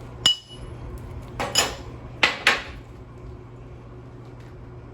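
Sharp metallic clanks of steel pieces knocking together: one about a quarter second in with a brief ring, another around one and a half seconds, then two in quick succession a little later, over a steady low hum.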